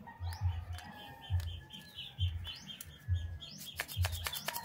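Birds chirping in quick runs of high chirps, over a low thump that repeats about once a second, with a few sharp clicks.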